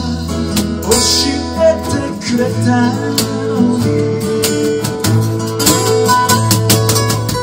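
Live acoustic band playing: steel-string acoustic guitars with a cajon tapping out the beat.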